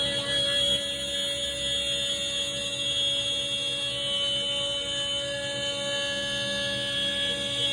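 CNC engraving machine running with a steady, unchanging high whine, its spindle motor held at constant speed.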